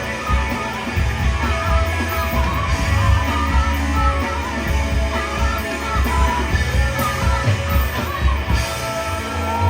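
Live rock band playing a song, with a singing voice over guitar, bass and drums.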